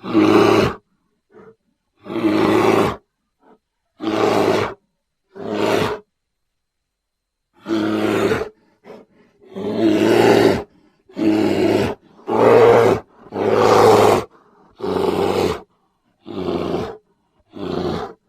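Grizzly bear roaring again and again: about a dozen short, loud roars, each lasting about a second, separated by gaps of dead silence.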